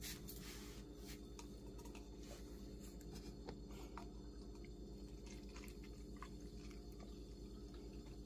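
Carbonated orange soda poured from a plastic bottle into a plastic cup, fizzing faintly with small scattered crackles, over a steady low hum.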